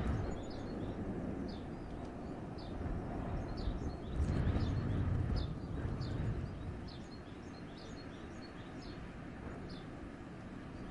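Winter wind gusting through a forest, a low rumbling rush that swells to its loudest about four seconds in and eases off after six. Small birds give short, high chirps over it, repeated many times.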